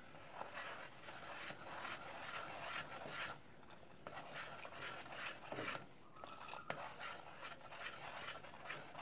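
Spoon stirring a pan of coconut water and sugar simmering on low heat, scraping the pan as it goes round; faint and irregular. The syrup is at an early stage of being boiled down to coconut treacle and is kept stirred so the sugar does not clump.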